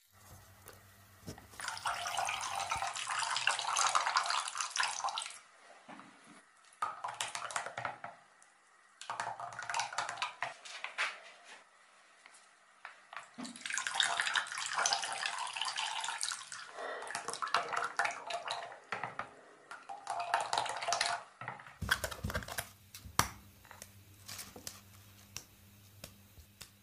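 Liquid poured into a bowl of thick yogurt and the mixture stirred with a silicone spatula, in several spells of splashing a few seconds each with short pauses between. Scattered clicks and knocks near the end.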